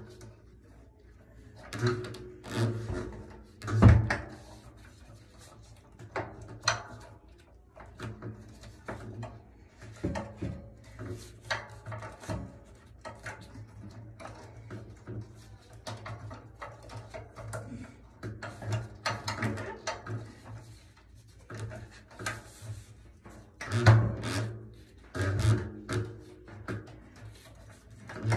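Bass drum pedal being fitted and clamped onto the bass drum's hoop: irregular knocks, clicks and scraping of handling, with a few heavier thumps about four seconds in and again near the end.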